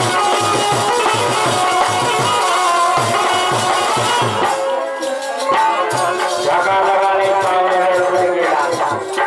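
Live Bundeli folk music: a harmonium holds sustained chords over steady drum strokes, with a rattling percussion layer. The drums drop out briefly about halfway through, then a man's singing voice comes in over the harmonium and drums.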